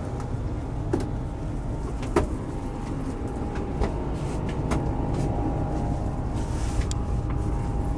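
Bus engine running, heard from inside the cabin: a steady low rumble with a faint steady whine, and a few sharp clicks and knocks.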